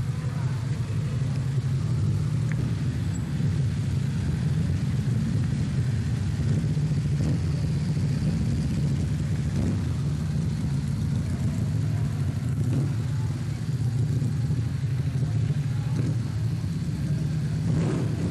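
Steady low rumble that holds even throughout, with a few faint short noises near the end.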